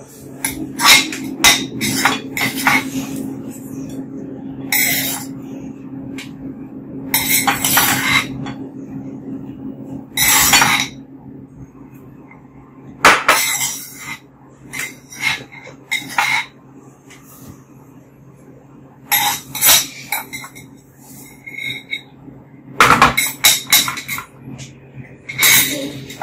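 A metal ladle and tongs clink and scrape against a clay pot and a ceramic plate as braised pork and corn are served. The clatter comes in irregular clusters of sharp knocks, with a steady low hum underneath.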